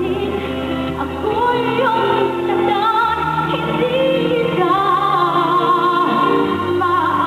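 A woman singing live, holding long notes with vibrato over an instrumental backing whose bass notes change every second or two.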